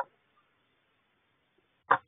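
Two short, noisy sounds from a barn owl in a wooden nest box, each about a tenth of a second long: one at the very start and one near the end.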